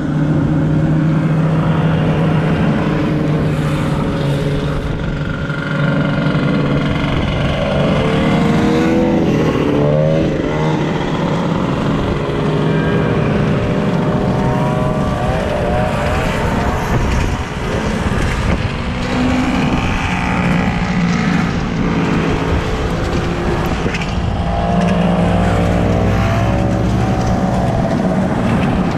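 Several vintage two-stroke snowmobile engines running as a line of snowmobiles on wheel kits drives past on pavement. The engine pitch slides up and down in waves as each machine goes by.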